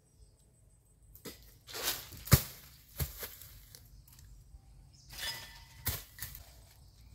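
Jackfruits dropping from the tree, crashing through leaves and branches with a rustling swish and landing on the ground with a heavy thud. This happens twice: the louder thud about two seconds in, followed by a smaller knock, and another swish and thud near six seconds.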